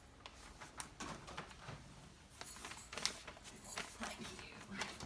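Scattered small clicks, taps and rustles from a laptop and its cables being handled and set up, in a small room.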